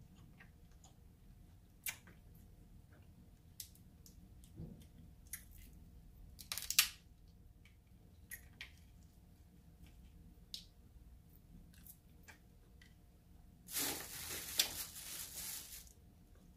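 Close-miked eating of king crab legs and shrimp: scattered small mouth clicks and crunches, a sharp crackle about seven seconds in, and a longer, louder noisy stretch about fourteen seconds in.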